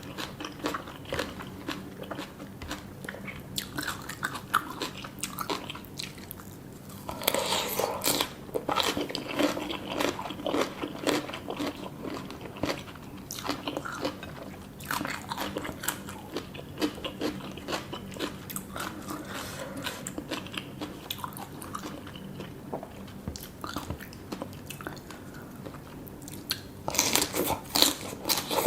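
Close-miked eating sounds: chewing and crunching of food, with louder, denser spells of crunching about seven seconds in and again near the end.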